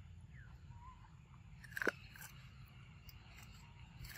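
Macaque biting and chewing a piece of food, with one loud crunch about two seconds in and a few smaller clicks of chewing after it.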